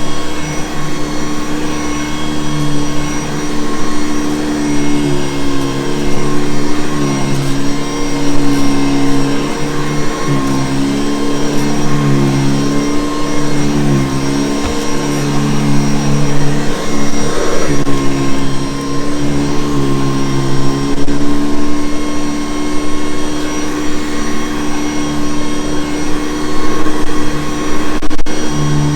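Vintage Hoover Convertible U4387 upright vacuum cleaner running steadily, its motor hum dipping slightly in pitch and recovering several times.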